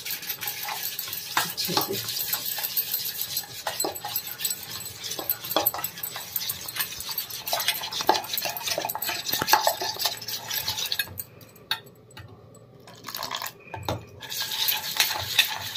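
Metal spoon stirring thick gram-flour batter in a stainless steel pot, with irregular clinks and scrapes against the pot's sides and bottom. The stirring goes quiet for a couple of seconds shortly before the end.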